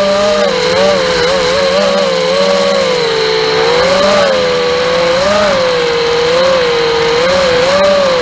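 Brushless motors and propellers of a Furibee Darkmax 220 FPV racing quadcopter whining in flight, the pitch wavering up and down with the throttle and rising near the end.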